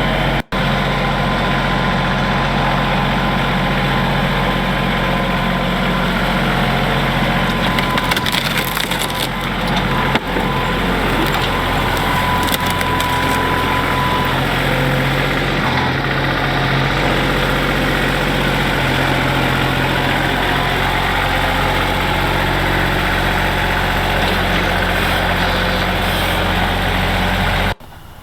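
Woodchipper engine running steadily while brush cracks and splinters through it, with louder bursts of snapping about eight to ten seconds in and again near the end. The sound cuts off suddenly just before the end.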